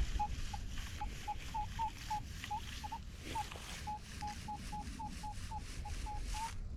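Metal detector giving a run of short, high beeps at nearly one pitch, about three or four a second and unevenly spaced, some flicking up slightly at the end, as it sweeps over a target in the dig spot. Low rustling and handling noise underneath.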